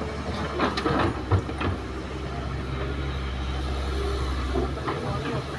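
Kobelco hydraulic excavator's diesel engine running steadily under load, with a burst of clattering knocks in the first two seconds as earth and rocks drop from its bucket into a steel dump truck bed.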